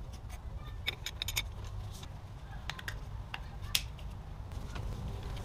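Light metallic clicks and clinks from hand work on the engine's accessory drive belt and pulleys: a quick cluster of clicks a little past a second in, then a few single clicks, over a low steady hum.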